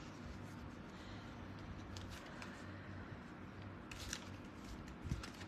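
Faint shuffling and handling of a deck of oracle cards, with a few soft clicks and rustles about four and five seconds in, over a low room hum.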